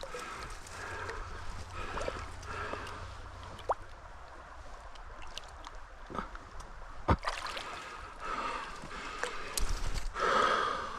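Creek water running steadily, with a few short sharp knocks and splashes, the loudest about seven seconds in, from handling a freshly landed brown trout at the water's edge.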